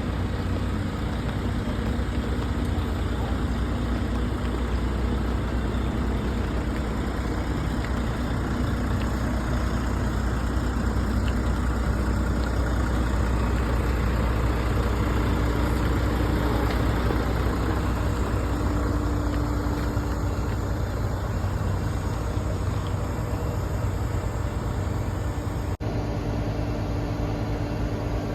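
Bus engine running steadily with road noise, heard from inside the bus; the sound briefly drops out near the end.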